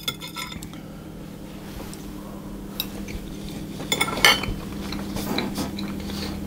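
A few light clinks and knocks of cutlery against a plate, the loudest about four seconds in, over a steady low hum.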